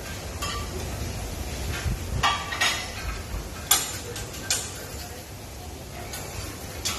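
Metal cooking utensils clanking and tapping on a teppanyaki griddle in irregular sharp strikes, the loudest a little under four seconds in.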